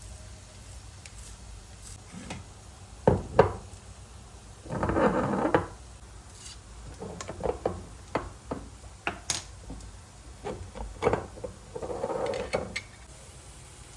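Kitchen handling sounds: a series of sharp knocks and clatters of cookware and utensils, with two brief rustling scrapes, one about five seconds in and one near the end.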